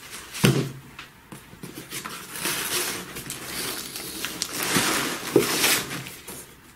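Plastic-bagged comic books being handled and riffled through in a cardboard comic box: the bags rustle and crinkle as they slide against each other, with a sharp knock about half a second in.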